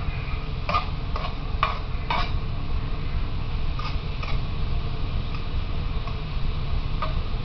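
Metal spatula scraping and knocking against a stainless steel pan as eggplant cubes are stir-fried: four strokes in the first two seconds or so, two more about four seconds in, and a single clink near the end, over a steady low rumble.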